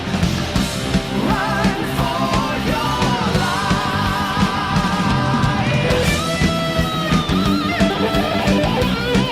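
Rock music with sung vocals, electric guitar and drum kit.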